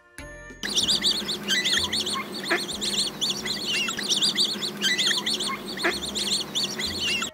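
Flock of domestic ducks calling: a dense, continuous chatter of high, quick chirping calls that starts under a second in.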